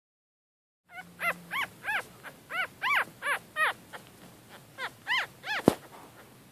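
Newborn Yorkshire Terrier puppies squeaking and whimpering: a string of short, high, rising-and-falling cries at about three a second, starting about a second in, with a short pause midway. A single sharp knock comes near the end.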